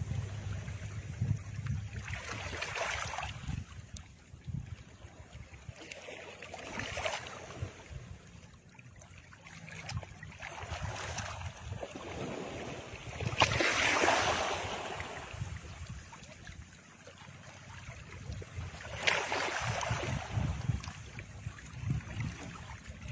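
Background sound bed of noisy, whooshing swells that rise and fade every four or five seconds over a low rumble, like surf or wind, with no speech. The loudest swell comes about fourteen seconds in.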